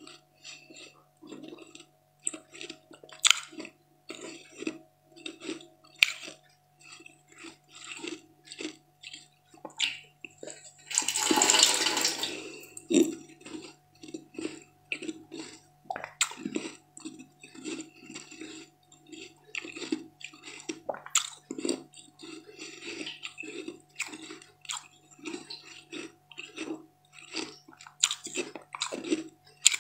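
Close-miked eating of a thin, translucent pink sweet: many short crackling bites and wet chewing and mouth sounds. There is one longer, louder burst about eleven seconds in, over a faint steady hum.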